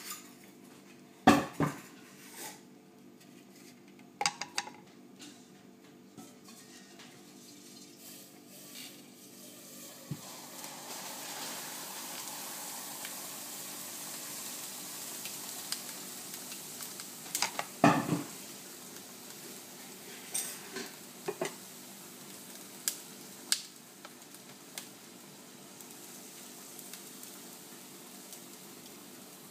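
Liquid nitrogen poured from a dewar into a bowl, hissing as it boils off for several seconds about a third of the way in, among scattered knocks and clinks of the dewar, bowl and utensils being handled.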